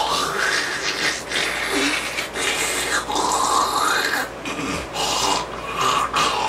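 A person making fake spitting noises with the mouth: a run of hissing, sputtering bursts with a wavering vocal tone through them.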